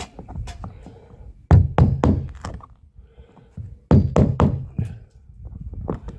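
Two runs of several quick, sharp knocks, a tool striking the wooden deck covering boards while the screw plugs are being knocked out.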